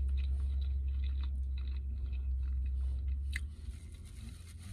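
A man chewing a mouthful of fried meat-filled pastry, with small wet mouth clicks and one sharper click. Under it runs a low steady drone inside the car that drops away about three and a half seconds in.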